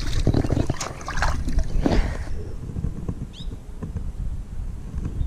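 Water splashing at the surface beside a small aluminium boat as a released bass kicks away, for about two seconds, followed by a low steady rumble and one short high chirp about three seconds in.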